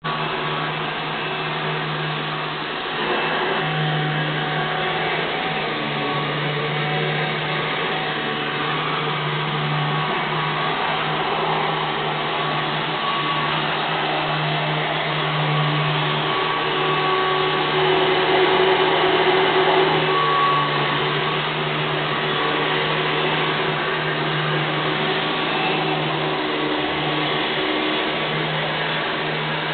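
Vacuum cleaner running steadily, a continuous motor hum under rushing air.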